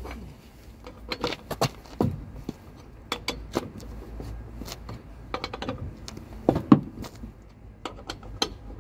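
Irregular metal clinks and knocks from a car jack and its handle being handled at the wheel of a car, with one louder knock about two thirds of the way in.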